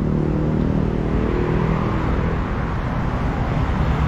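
Busy road traffic: vehicle engines running steadily close by, over a constant rush of tyre and road noise.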